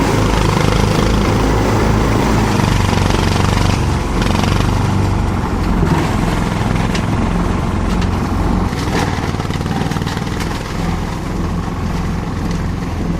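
Multi-purpose chopper-shredder machine running steadily with a low motor drone, with scattered short cracks and knocks from about four seconds in.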